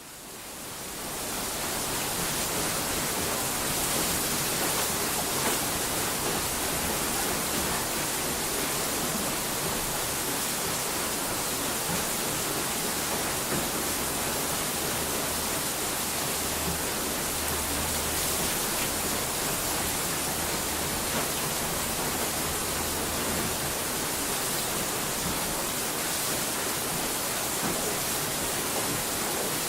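Steady, even rushing hiss, fading in over the first couple of seconds and then holding level.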